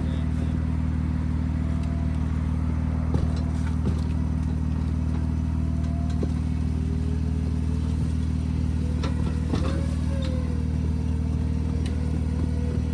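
Vehicle engine running at a steady idle, a constant low hum, with a few light clicks.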